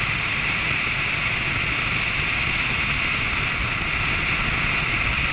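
Steady rush of wind on the microphone of a BMW R1200GS Adventure motorcycle at cruising speed, over the low drone of its boxer-twin engine and road noise.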